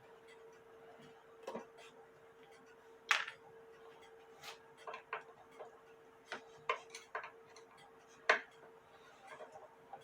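Irregular sharp clicks and knocks from handling and working on an antique cuckoo clock's wooden case and movement, the loudest about three seconds in and again near the end. A faint steady hum runs underneath.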